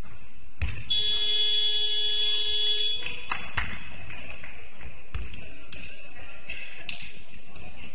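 Basketball scoreboard buzzer sounding one steady blast of about two seconds, a harsh tone with many overtones. A few thumps of a ball bouncing on the court come before and after it.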